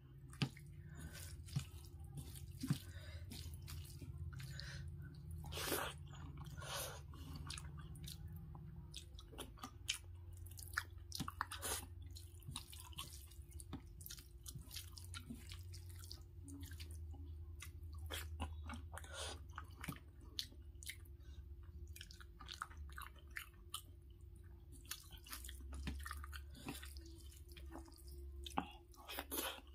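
Close-miked eating by hand: wet, irregular squishes and smacks of fingers mixing rice with curry on a steel plate, and chewing, over a low steady hum.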